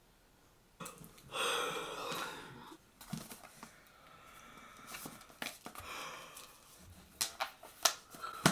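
A woman's long, breathy, voiced exhale, then the rustle of paper book pages being leafed through, with several sharp page flicks near the end.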